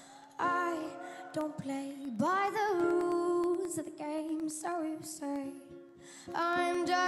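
A 12-year-old girl singing solo while strumming a ukulele. Her sung phrases start about half a second, two seconds and six seconds in, over the ukulele's chords.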